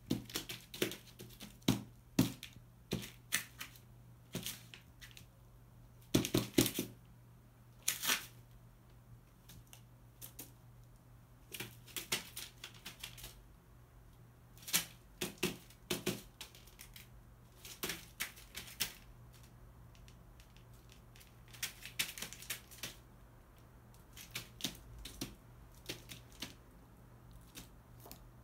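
A crow's beak pecking and tapping at newspaper spread on a hard floor: irregular sharp taps, sometimes in quick clusters of several, with rustling paper.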